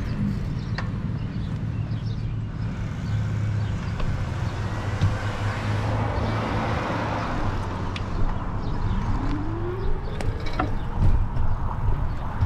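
Road traffic with a steady low rumble, heard from a moving bicycle. About nine seconds in comes a rising whine lasting a second or so.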